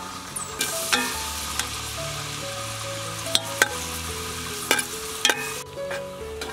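Sliced shallots and garlic frying in soybean oil in a metal pot, sizzling as they are stirred, with a metal ladle clinking against the pot several times. The sizzle starts about half a second in and falls away near the end. Background music plays under it.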